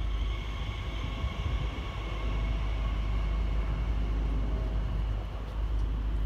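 Railway station ambience: a steady low rumble with a faint hiss above it and a few faint steady tones, no single event standing out.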